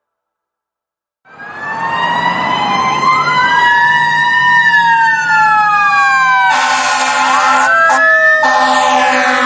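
Several emergency-vehicle sirens wailing at once, their pitches gliding up and down across each other, starting suddenly a little over a second in. In the last third a harsher blaring tone cuts in twice over the wail.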